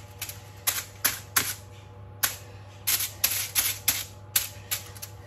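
Kitchen knife tip punching small holes in aluminium foil stretched over a baking tray: about a dozen sharp, irregular crackling pops, with a short pause about two seconds in. The holes let the water from the chicken and onions steam off in the oven.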